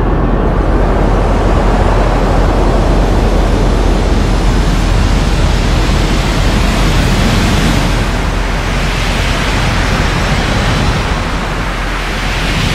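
Supernova explosion sound effect: a loud, steady rush of noise over a deep rumble. The hiss swells about seven seconds in and again near the end.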